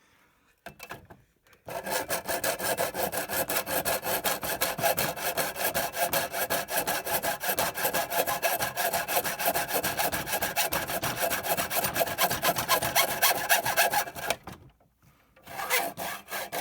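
Hand saw cutting through a router's thick plastic case in quick, even back-and-forth strokes. It starts about a second and a half in, stops briefly near the end, then starts again.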